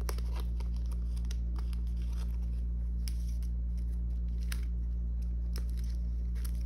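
Clear plastic binder sleeves and photocard sleeves crinkling and clicking in short scattered crackles as a photocard is slid into a binder pocket, over a steady low hum.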